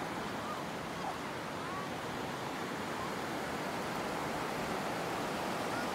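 The Cossatot River running high, its fast current rushing over rapids in a steady wash of water noise.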